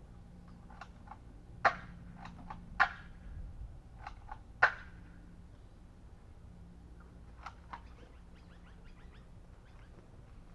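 Spring-powered M870 pump-action gel blaster shotgun firing three sharp shots, the second about a second after the first and the third about two seconds later, with lighter clicks between them. A run of faint ticks follows.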